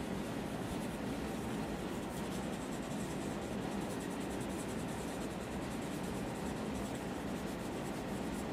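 Pencil rubbing on paper in small circular shading strokes, a steady soft scratching.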